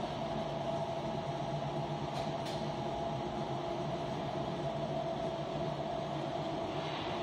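Ring-die organic fertilizer granulator and its round polishing drums running, turning compost into round granules: a steady mechanical drone with a constant whine held through it.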